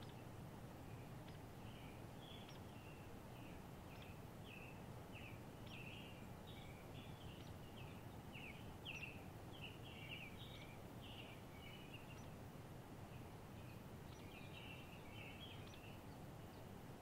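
Songbirds chirping faintly in many short, quick chirps, busiest in the middle and again near the end, over a soft steady low background noise.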